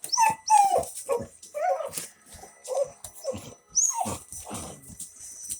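Dogs whining and yipping in a quick run of short, excited calls, about a dozen in five seconds, while playing with a remote control car.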